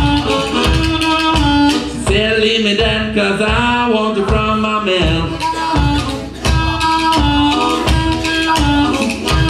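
Amplified blues harmonica played into a cupped bullet microphone over a fast, steady clacking of bones percussion. About two seconds in, the harmonica bends its notes up and down for about three seconds before returning to steady held notes.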